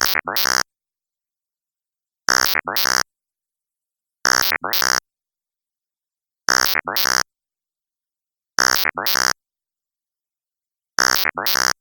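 Synthesized alien robot voice effect: a short electronic two-part utterance with a rising glide in the second part, repeated six times about every two seconds, with dead silence between.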